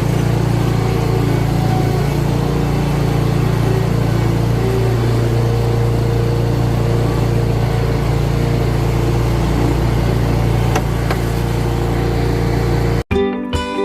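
An engine running steadily at an even speed. About 13 s in it cuts off suddenly and acoustic guitar music starts.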